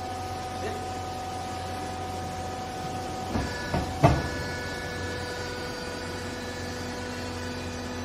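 Vertical hydraulic clothes baler's power unit running with a steady hum and whine. A few sharp clunks come about three and a half to four seconds in as its controls are worked, and the steady tone then drops to a lower pitch.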